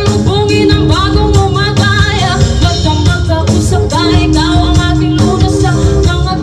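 A song with a singing voice, guitar and drums, played loud with heavy bass through a sound system being tested.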